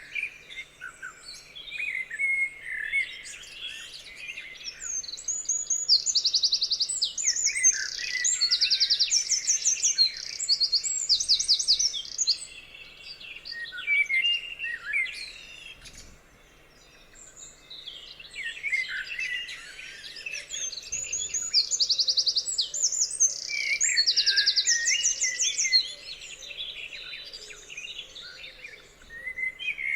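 Songbirds singing, several calls overlapping, with rapid high trills repeating throughout and a brief lull about halfway.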